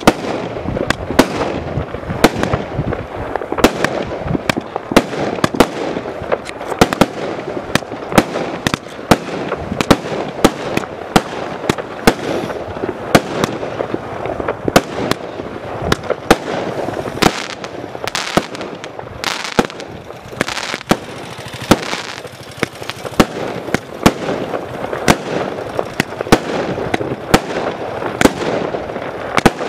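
Primed Pyrotechnics Casino 50-shot barrage cake firing its 20 mm tubes in quick succession: sharp, loud shot after shot, with a continuous crackle between the reports.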